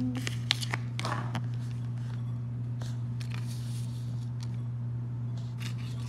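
Sheets of paper rustling and crinkling as they are handled, with a few short clicks and taps, mostly in the first second and a half. A steady low hum runs underneath.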